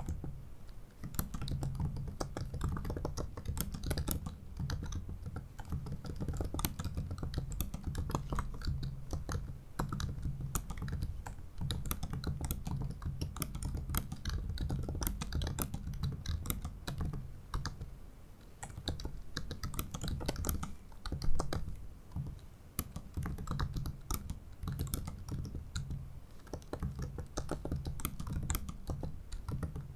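Steady typing on a 2017 MacBook Pro 15-inch's built-in butterfly keyboard: a rapid run of shallow key clicks with brief lulls. One key strike about two-thirds of the way through is clearly louder than the rest.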